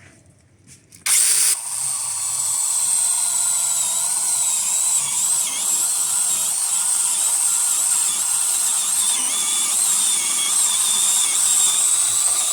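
Nicelyon TPLC S07A brushless battery chainsaw with a 6-inch bar, starting about a second in and cutting through a tree trunk of about 12 cm: a steady high electric whine whose pitch wavers briefly a few times as the chain bites. It stops abruptly near the end, once the cut is done.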